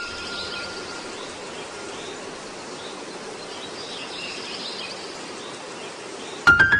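Steady hiss-like background noise with faint high chirps. About six and a half seconds in it is cut by a sudden bright chime with clicks as music begins.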